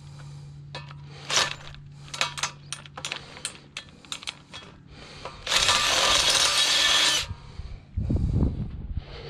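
Metal hardware clicking and clinking as it is handled. About five and a half seconds in, a power drill runs loudly for about a second and a half, and a few low knocks follow near the end.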